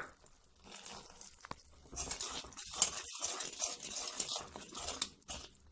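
Spoon stirring hot jaggery syrup in a kadhai, scraping against the pan with light clinks. The stirring gets busier about two seconds in.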